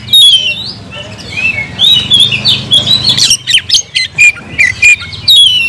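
Oriental magpie-robin (kacer) singing loudly in full, aggressive song: a rapid run of short whistled notes that slide up and down, mixed with sharp harsh calls, the challenge song given to a rival male.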